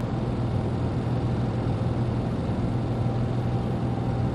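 Steady low hum of a running engine, unchanging.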